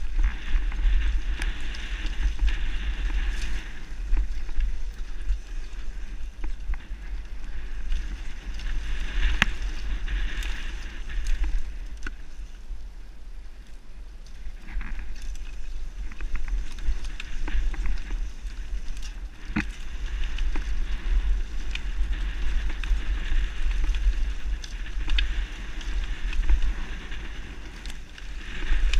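Downhill mountain bike riding fast down a rough dirt trail, heard from a helmet camera: a heavy, fluttering wind rumble on the microphone, a hiss that swells and fades with speed, and scattered sharp knocks and rattles as the bike hits bumps.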